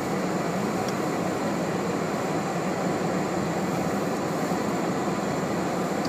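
Steady noise inside a car's cabin as it drives through snow: an even hiss and rumble from the running engine, the tyres and the heater fan.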